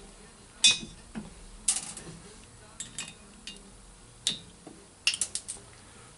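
Sharp metallic clinks and taps of hand tools and small valve-train parts as the valve seals and lower spring collars are pulled from a cylinder head. The clinks are scattered one at a time, with a quick cluster of several about five seconds in.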